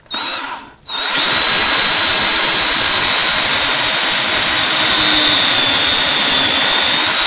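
DeWalt cordless drill with a 1/8-inch bit drilling a starter hole into a vinyl window frame. A short burst of the motor, then about six seconds of steady running with a high whine, which stops abruptly at the end.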